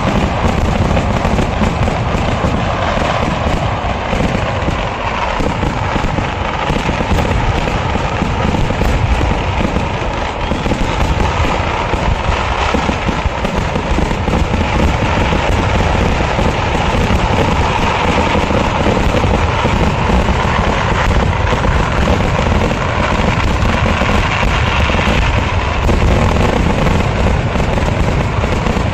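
Kerala temple-festival fireworks going off in a dense, continuous barrage, rapid firecracker blasts running together without a pause.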